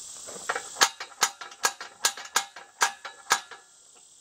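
A series of about seven sharp metallic knocks, roughly two a second, each with a brief ring, as a rubber torque arrestor is worked onto the pipe below a brass windmill pump cylinder.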